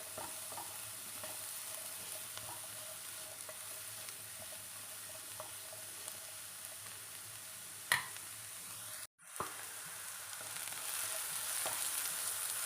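Mushrooms sizzling as they sauté in butter in a pan, with scattered light taps of stirring. A sharp click about eight seconds in, the sound drops out for a moment a second later, and the sizzle grows louder near the end.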